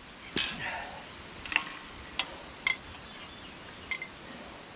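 Scattered sharp clicks and light knocks, about five, some with a brief metallic ring, from bucksaws with aluminium and wooden frames and steel blades being handled and lifted. Faint high chirps sound in the background.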